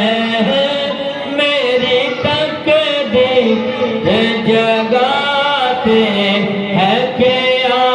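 Male voice singing a naat, an Urdu devotional song, in long held and ornamented melodic notes without words the ear can catch.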